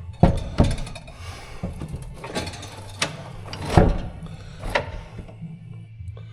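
Scattered metal knocks and clunks, about six in all, as a Ford 4R100 automatic transmission is lowered out of the truck, over a steady low hum.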